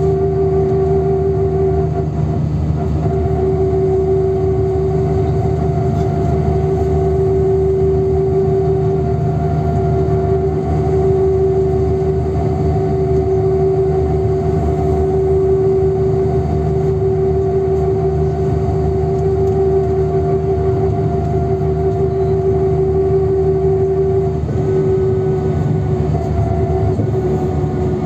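NefAZ 5299 city bus heard from inside the cabin while driving at a steady speed: a low engine and road rumble with a steady high drivetrain whine over it. The whine dips briefly about two and a half seconds in and again near the end.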